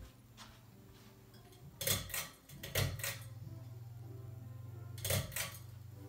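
Harbor Breeze Builder's Best ceiling fan motor humming steadily at medium speed, the hum growing stronger about three seconds in. A few sharp clicks come around two, three and five seconds in.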